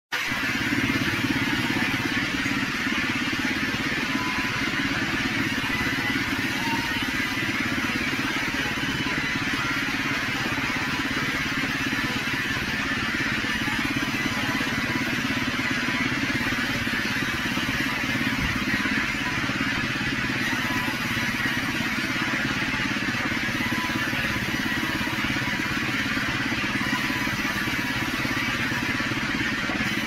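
Large vertical band sawmill running while a log is fed through it and a slab is sawn off. It makes a steady, unbroken mechanical din with faint steady high tones.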